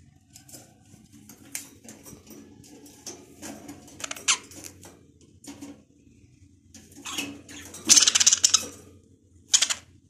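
Several budgerigars chirping and chattering in short, scattered calls, with a louder burst of chatter about eight seconds in.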